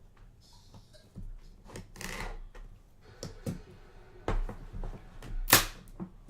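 Trading cards and their packaging being handled on a table: scattered light clicks and taps, a brushing swish about two seconds in, and a louder, sharp swish about five and a half seconds in.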